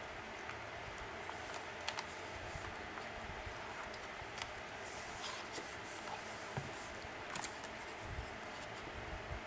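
Quiet handling of paper and card: a few light clicks and soft taps as a junk journal is worked with a pointed pick tool and turned around on the mat, over a steady hiss.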